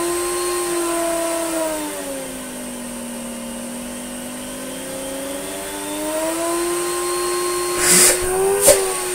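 Electrolux Slimline 185 vacuum cleaner motor, newly replaced and running without its sound deadening fitted. Its pitch falls about two seconds in, holds lower, then rises back up around six seconds, as the speed control is turned down and up again. A few short knocks come near the end.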